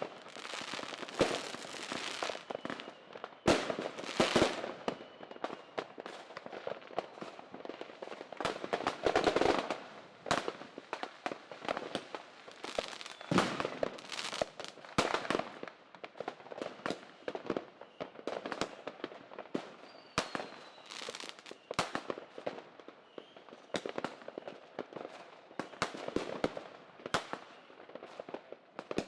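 Fireworks and firecrackers going off, with irregular sharp bangs and runs of rapid crackling pops, and a few faint falling whistles.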